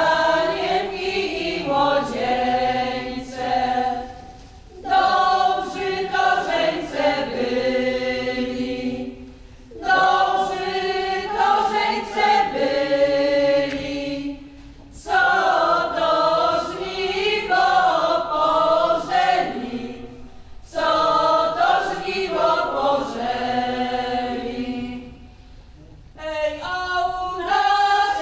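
Folk ensemble of many voices singing a song in unison and harmony without instruments. The song goes in phrases of about five seconds, with a short break for breath between each.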